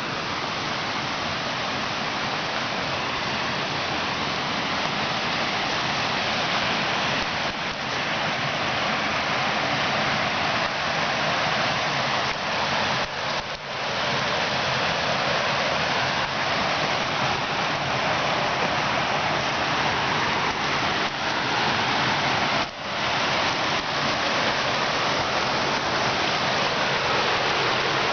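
Small forest stream rushing and splashing over stones, a steady rush of water that grows a little louder over the first several seconds.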